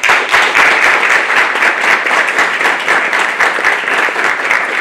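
An audience starts applauding all at once and keeps up loud, steady clapping from many hands.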